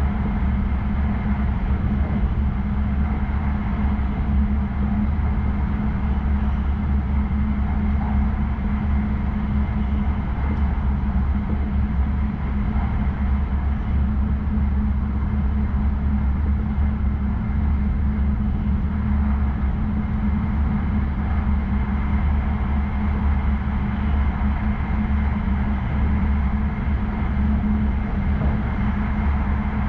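Tohoku Shinkansen Yamabiko train running at speed, heard inside the passenger car: a steady low rumble and hum of running noise.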